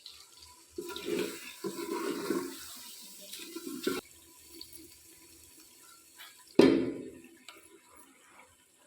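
Water pouring and sloshing in several short bursts, with a louder splash about two-thirds of the way through that fades away.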